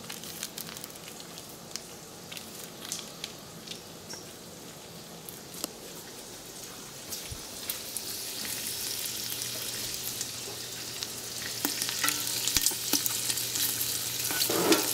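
Diced salt pork sizzling in a stockpot as it renders its fat. The sizzle swells about halfway through and grows louder toward the end, with scattered light clicks and knocks in the first half.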